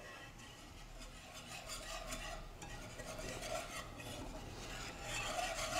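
Wire whisk stirring milk into a flour-and-oil roux in a skillet to make gravy: a faint, continuous scraping and sloshing of the whisk against the pan.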